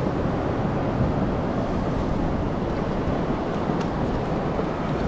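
Steady rush of sea surf on the shore, with wind buffeting the microphone.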